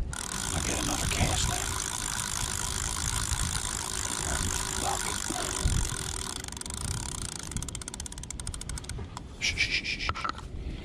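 A steady hiss, then near the end a Mitchell 304 spinning reel being cranked: a quick, even run of clicks followed by a short pulsing whir as the line is wound in.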